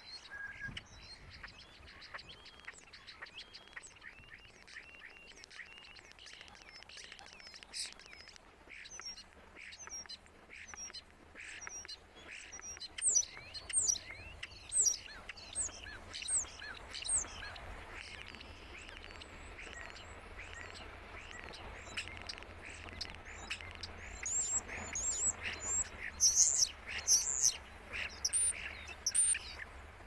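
European starling singing a long, rambling song of quick high whistles, slurred sweeps and clicks, mimicking other birds' calls. Its loudest whistled notes come in runs about halfway through and again near the end.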